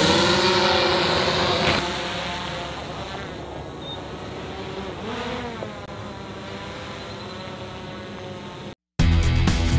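DJI Mavic 2 Pro quadcopter's propellers buzzing in flight, the pitch bending as the drone climbs overhead. After about two seconds the buzz drops to a fainter, more distant whine, and music comes in near the end.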